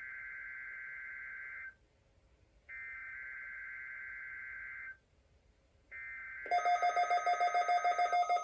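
NOAA Weather Radio SAME digital header sent as three raspy two-tone data bursts, each about two seconds long and a second apart, marking the start of an emergency alert test. About six and a half seconds in, a louder steady tone with a quick rhythmic pulsing and high tones starts over the third burst.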